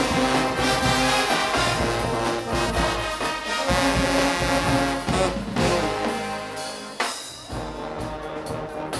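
Guggenmusik carnival band playing loudly, trombones and trumpets over drums. About seven seconds in the music stops on a sharp final hit and the sound drops away.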